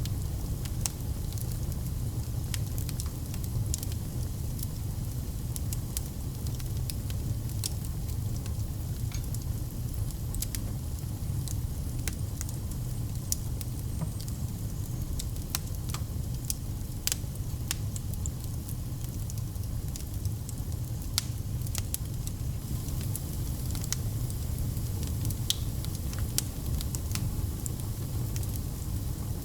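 Wood fire crackling in a fireplace: a steady low rumble of the flames with frequent small sharp snaps and pops over it.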